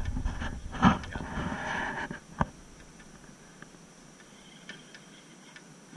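Wind buffeting the microphone for about two seconds, ending with a single sharp knock. After that it is quiet apart from a few faint ticks.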